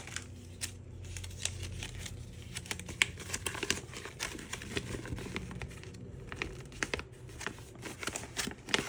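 Product packaging being handled and opened by hand: irregular crinkling and crackling, with some tearing.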